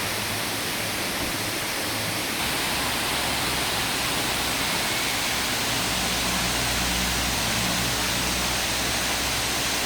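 Waterfall rushing steadily, an even hiss of falling water. A faint low hum joins in about two and a half seconds in.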